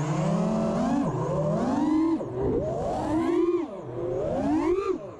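Brushless motors and props of an FPV freestyle quadcopter (Hurricane 2207 2500kv motors on DAL T5045C props) in hard flight, their whine sliding up and down in pitch with the throttle. The sound drops briefly about two, three and a half and five seconds in, where the throttle is chopped.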